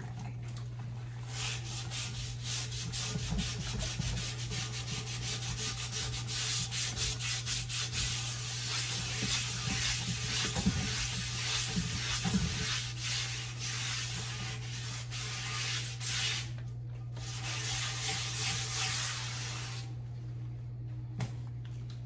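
Scouring pad scrubbing a freshly electrolysed cast iron skillet, rapid scratchy back-and-forth strokes, working off the black oxide and flash rust; the scrubbing breaks off briefly about 16 seconds in and stops near the end.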